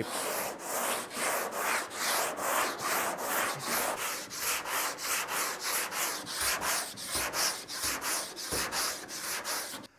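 Cured body filler on a car panel being block-sanded by hand with 80-grit paper on a long sanding block, rough-shaping the filler. Quick, even back-and-forth strokes, about four a second, stop suddenly near the end.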